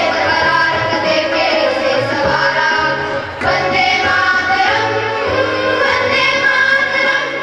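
Indian song with a singing voice over instrumental backing.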